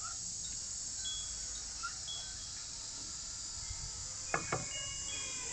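A steady high-pitched insect chorus with a few faint short chirps over it. About four seconds in, two light knocks close together as the bonsai's ceramic pot is handled and lifted from its wooden stand.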